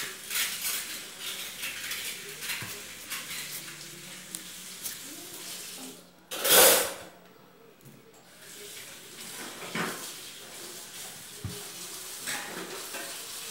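Colored pencils scratching on paper and clicking against the table, with small taps and rustles of the worksheet. About six seconds in, a brief loud rushing burst of noise.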